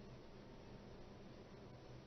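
Near silence: faint steady background hiss and low hum.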